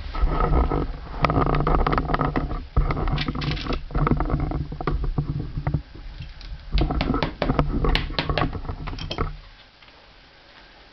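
Hand-lasting a shoe: irregular clicks and taps of pliers and leather on the last, over a steady low hum. The hum and the taps stop about nine seconds in.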